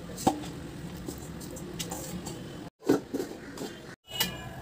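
Dough being handled in a stainless steel bowl: soft rubbing with a few sharp taps and knocks, the loudest about three seconds in, over a steady low hum. The sound cuts out briefly twice.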